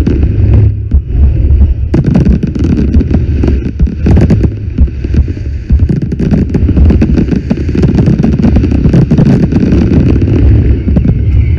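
Fireworks going off in a dense barrage: many sharp bangs and crackles, one after another, over a constant deep rumble, all very loud.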